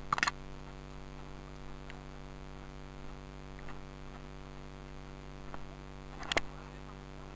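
Steady low electrical hum with a few short sharp clicks, the loudest about six seconds in.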